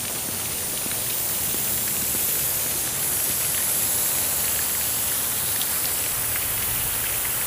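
Lawn irrigation sprinklers spraying in light drizzle: a steady hiss of water with scattered faint drips. The sprinklers are running despite the rain, which the resident blames on an unfixed rain sensor on the sprinkler pump.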